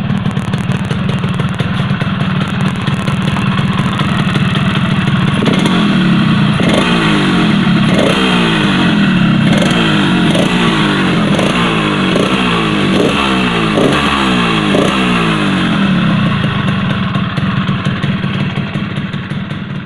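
Yamaha RX-King's 135 cc single-cylinder two-stroke engine running. From about five seconds in, the throttle is blipped repeatedly, about once a second, each blip a quick rise in revs, until near the end.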